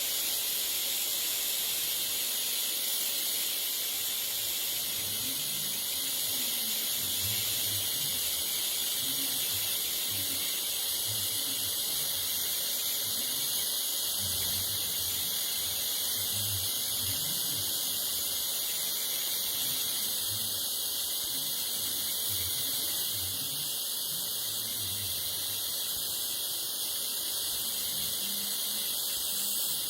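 Steady high-pitched hiss of a TIG welding arc burning continuously.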